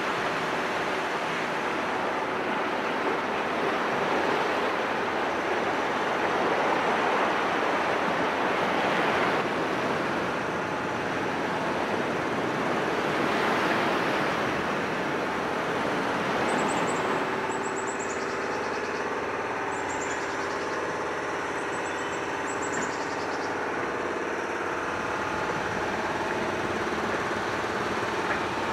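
Steady rushing noise that holds at an even level, with a few faint short high chirps in the second half.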